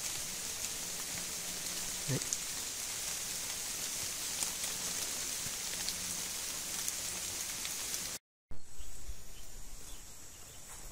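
Steady high hiss of rain falling on forest leaves, with a single faint click about two seconds in. Near the end the sound cuts out for a moment and comes back quieter and thinner.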